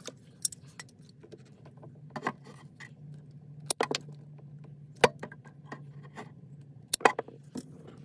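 Metal fork terminals crimped on battery cables clinking and tapping as the wires are handled: a scatter of sharp clicks, the loudest around four, five and seven seconds in, over a faint steady low hum.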